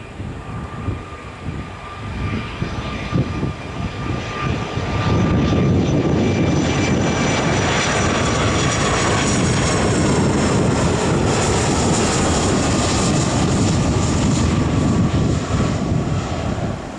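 Boeing 757 jet airliner on final approach, its twin jet engines whining and rumbling as it comes in low. The sound swells about five seconds in and stays loud, with a high whine that slowly falls in pitch as the plane passes.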